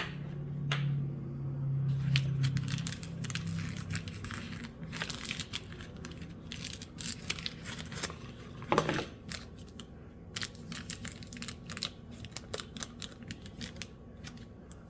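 Packaging being handled and unwrapped, crinkling and rustling with many small crackles and clicks, and one louder rustle about nine seconds in.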